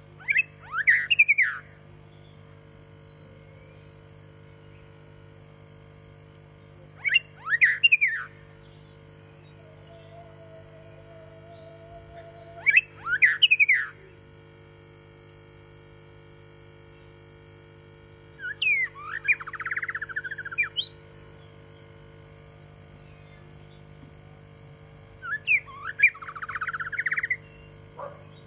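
White-rumped shama singing: five separate song phrases spaced several seconds apart, each a quick run of whistled notes lasting one to two seconds, the last two longer and trilled.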